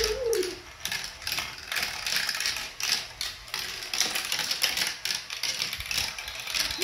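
Plastic marble run clattering: marbles clicking and rattling along the plastic tracks and funnels, with the motorized chain elevator ticking as it lifts them, in many irregular clicks.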